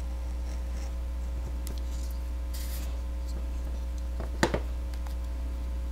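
Faint scraping of a craft knife blade cutting through a paper template and thin Play-Doh on a cutting mat, over a steady electrical hum. About four and a half seconds in come two sharp knocks close together, the loudest sounds here.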